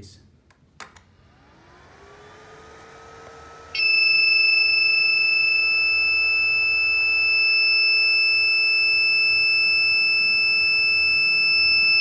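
Ender 3D printer's buzzer sounding one long, unbroken high-pitched beep lasting over eight seconds, starting about four seconds in. Before it there is a click as the printer is switched on and a hum rising in pitch as a fan spins up. The owner traces this power-on beeping to a fault in the hotend's temperature-sensor (thermistor) wiring.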